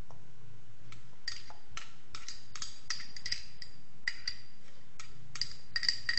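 A spoon tapping against a glass bowl to knock grated paneer out into a food processor jar: a run of light, irregular glassy clinks, about two to three a second.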